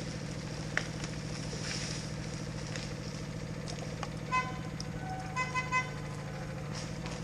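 Steady drone of the logging yarder's engine, with the rigging signal whistle giving one short toot about four seconds in and then three quick toots a second later.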